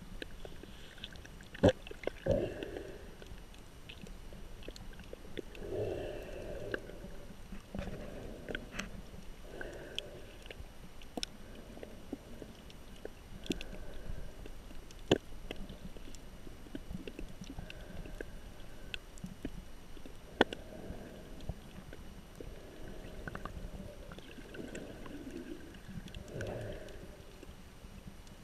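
Underwater sound picked up by a GoPro in its waterproof housing while snorkeling: muffled, shifting water noise with scattered sharp clicks and pops, the loudest near the start and twice later on.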